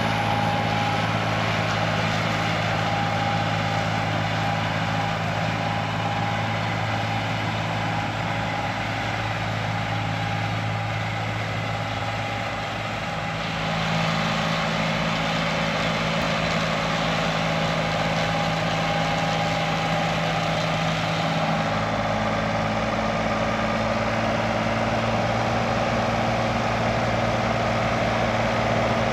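Farm tractor engine running steadily while mowing hay, its note shifting about 13 seconds in and again about 21 seconds in.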